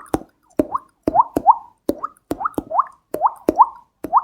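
Beatboxed water-drip sound made with the mouth: a rapid, uneven series of wet plops, each a sharp click followed by a quick rising 'bloop', about two to three a second.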